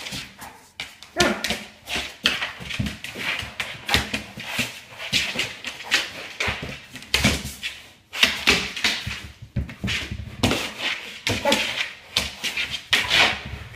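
A Kong Wobbler treat toy filled with kibble rocking and knocking again and again on a wooden floor, the food rattling inside, as a Rhodesian Ridgeback noses and pushes it.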